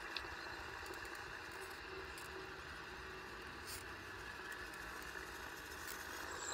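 Faint, steady whirring of a radio-controlled Bruder toy tractor's small electric drive motor and gearbox as it drives along.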